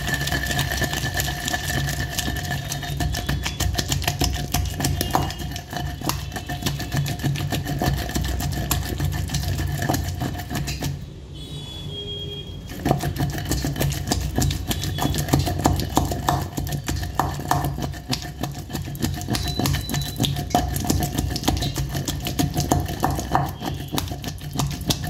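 Wooden pestle pounding soaked tamarind, cumin and salt into chutney in a stone mortar: rapid, irregular thuds and wet squishing, with a short break about eleven seconds in. A steady low hum runs underneath.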